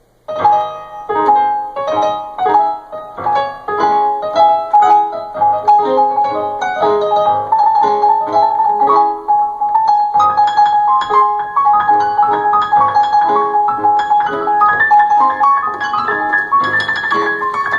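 Electronic keyboard on its Steinway grand piano voice, played with no sustain pedal: a lively piece of chords and melody that begins abruptly, with one high note struck over and over through the middle.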